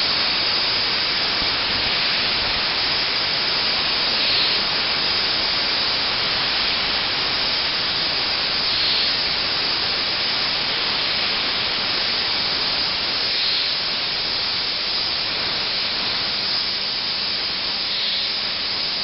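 YCM NSV 102A vertical machining centre hard milling, heard as a steady, even hiss. It brightens briefly about every four and a half seconds.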